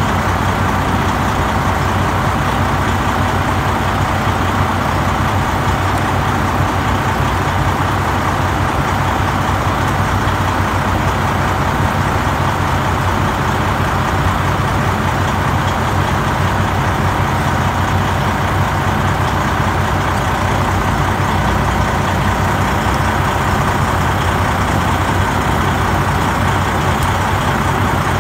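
Heavy diesel truck engine idling steadily, an even low rumble that does not change.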